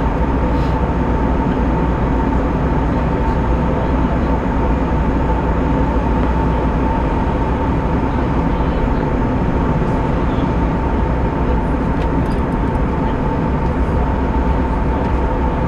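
Airbus A320 cabin noise: a steady drone of the jet engines and airflow, heavy in the low end, with a steady hum tone running through it.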